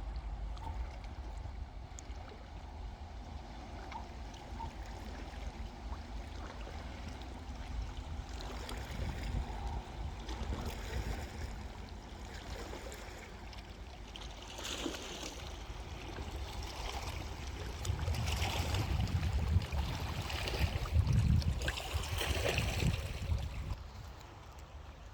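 Water lapping and splashing along a reservoir shore, with a low wind rumble on the microphone. It grows louder for a few seconds near the end, then eases off.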